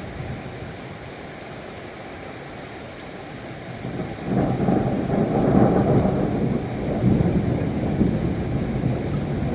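Steady rain with a rumble of thunder that swells about four seconds in and keeps rolling.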